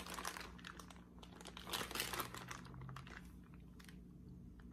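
Sealed plastic bag of marinating chicken crinkling faintly as it is handled, in scattered crackles over the first few seconds.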